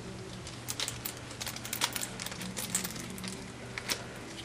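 Irregular small plastic clicks and rattles of tube-linked ink-system cartridges being pulled apart in gloved hands.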